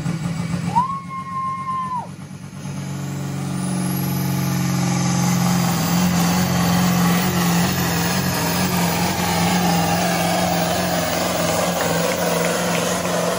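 Big-cam engine of a modified pulling tractor swelling up to a hard, steady run, with a rising whine on top. Before it, about a second in, a short steady tone sounds for about a second.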